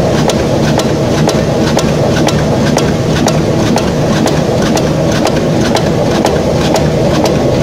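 Heavy metalworking machine running steadily with a low rumble and a regular ticking, about three ticks a second.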